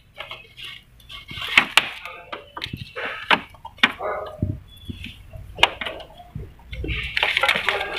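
Rubber vacuum hoses and their plastic fittings being pulled off and handled by hand: irregular clicks, knocks and rustling.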